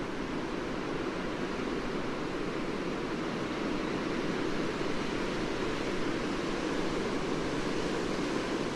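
Blizzard wind blowing against a window with snow and ice driven against the glass, a steady dense rush of noise that swells slightly partway through.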